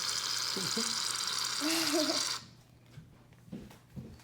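Aerosol shaving cream can spraying foam with a steady hiss that cuts off suddenly about two and a half seconds in, followed by a couple of faint knocks.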